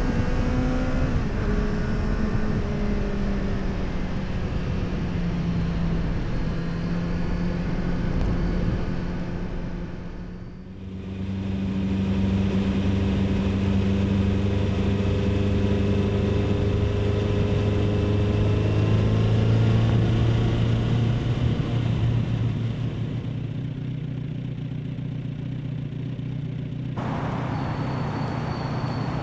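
Exhaust of a Kawasaki Z900RS's 948 cc inline-four engine running at fairly steady revs while riding. The sound dips briefly about ten seconds in and then carries on steady and stronger, turning duller near the end.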